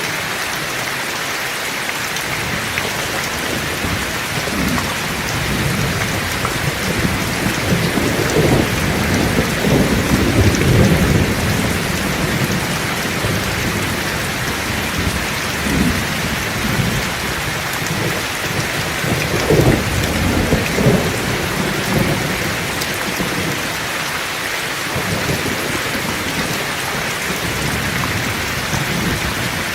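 Heavy rain falling steadily, with low rolling thunder that swells twice, about a third of the way in and again about two-thirds of the way in, then eases off.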